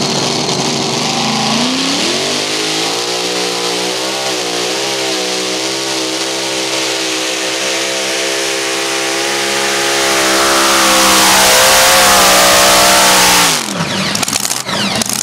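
Mini rod pulling tractor's engine revving up as it launches, then running hard and steady at high revs down the track, growing louder near the end of the pull. The engine sound stops abruptly about thirteen seconds in, followed by scattered crackles.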